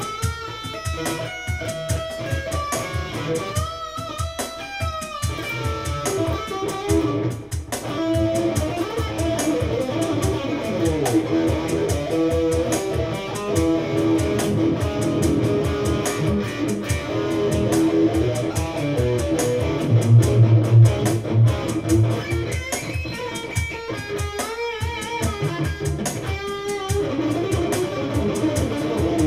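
Electric guitar played in a free jam: continuous melodic lines with bent and wavering notes over a low, full-bodied tone.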